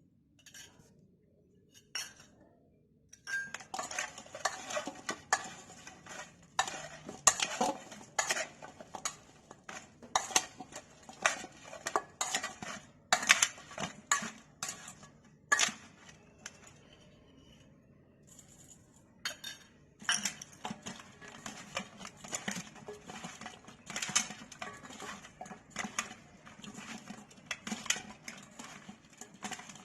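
A spoon clinking and scraping against a bowl in quick, irregular strokes, typical of tossing cut green mango pieces with red chilli powder; the clatter stops for a few seconds in the middle, then resumes.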